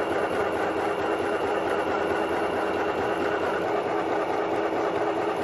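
Stoigeld SM-725 portable electric sewing machine running and stitching fabric: a steady, even motor hum and needle action with no change in pace.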